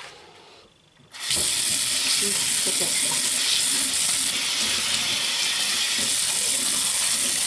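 Kitchen tap turned on about a second in, then water running steadily into a stainless-steel sink.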